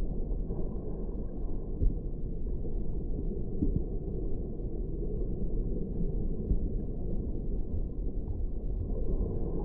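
Muffled underwater sound of shallow coastal water picked up by a GoPro in its housing: a steady low rumble with faint scattered ticks, and one sharper click about two seconds in.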